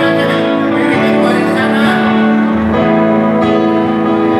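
A band plays a slow rock ballad's instrumental intro, with guitar and keyboard holding sustained chords. The chord changes about a second in, and low bass notes join near the three-second mark.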